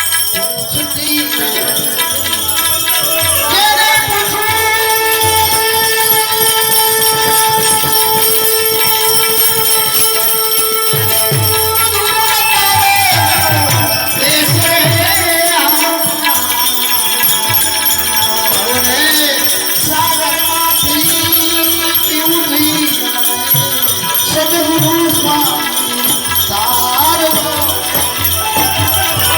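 Indian folk instrumental of benjo (Indian banjo) and tabla: a melody with long held and gliding notes over tabla strokes, with jingling bell percussion throughout.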